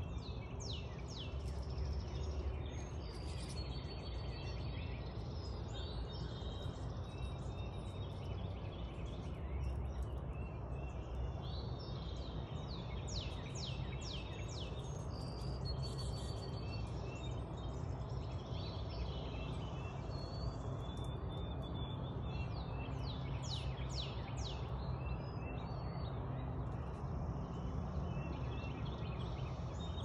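Backyard songbirds chirping and singing, with several runs of quick downward-sweeping notes, over a steady low background rumble.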